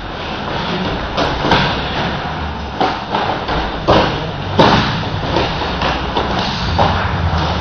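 Aikido practitioners' bodies and feet hitting a plastic-covered dojo mat during throws and breakfalls: a series of irregular thuds and slaps, the loudest about four and a half seconds in.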